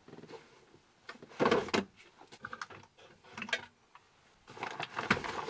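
Items being lifted out of a van's under-seat storage compartment: a towel rustling and spare parts and tools knocking and scraping, in three short bursts of handling noise.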